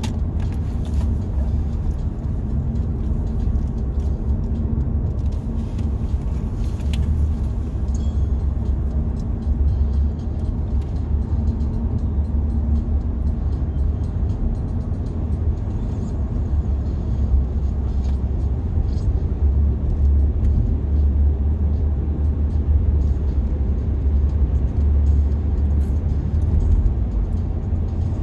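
Steady low road rumble inside a moving car's cabin: tyre and engine noise at highway speed.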